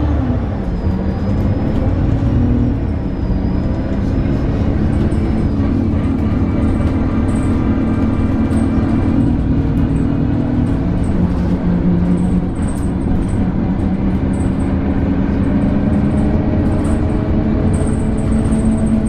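ADL Enviro 300 single-deck bus running, with a steady engine and drivetrain drone whose pitch drops just after the start. Brief high scratchy noises come and go over the drone.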